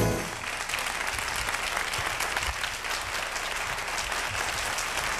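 Audience applauding at the end of a live jazz band's number. The band's last chord dies away just as the clapping takes over.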